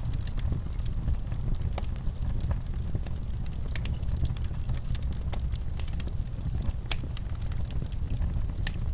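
Wood fire crackling in a fireplace: irregular sharp pops and snaps over a steady low rumble of flame.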